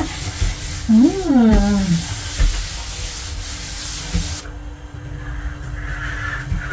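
Bare hands rubbing and smoothing flour over a rolled-out sheet of noodle dough on a countertop, a dry swishing that stops about four and a half seconds in. A short voice sound rises and falls about a second in, over a faint steady hum.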